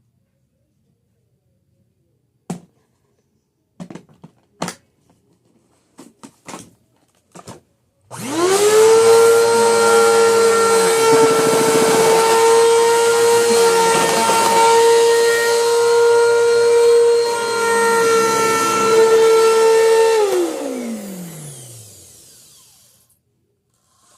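A few scattered clicks and knocks, then a vacuum cleaner motor switches on about eight seconds in and spins up quickly to a steady whine. It runs for about twelve seconds, then is switched off, its pitch falling as it spins down.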